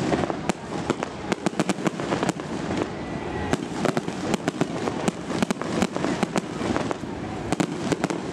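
Fireworks display: a rapid, irregular run of sharp bangs and pops over a steady crackling background.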